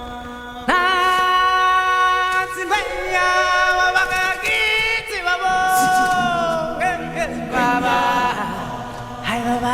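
Vocal music: voices singing long held notes with vibrato, coming in loudly just under a second in.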